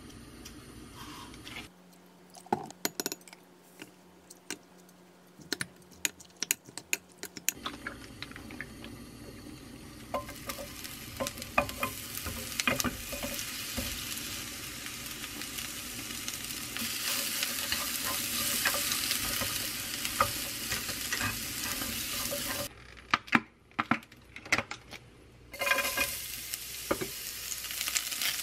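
Utensils clicking and tapping against dishes at first. Then sliced onion, and later julienned carrot, sizzle as they fry in oil in a frying pan, with more clicks of utensils through it. The sizzle gives way to a few clicks for a couple of seconds near the end, then starts again.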